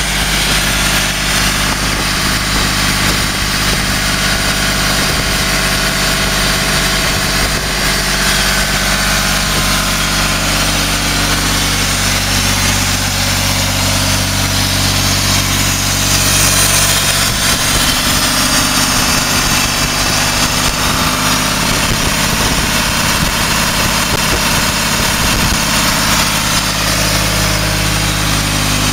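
A trailer-mounted diesel air compressor running at a steady speed. Its three-cylinder diesel engine drives a three-cylinder air compressor, and the engine's pitch holds constant throughout.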